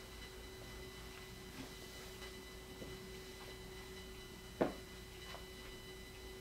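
A faint steady hum made of several held pure tones, with one short sharp click a little over four and a half seconds in.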